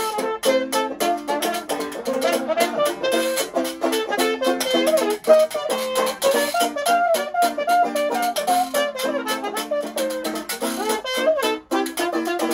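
A small acoustic jazz band playing: a trumpet and a second small horn carry the melody over strummed guitar and a washboard. The washboard gives a steady rhythm of sharp scrapes and clicks.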